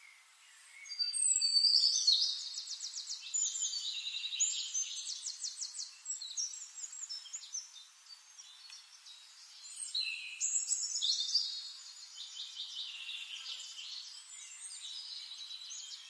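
A songbird singing: two long bouts of high-pitched, rapid trills and chirps. The first starts about a second in and is loudest at its start, and the second follows after a pause of about three seconds.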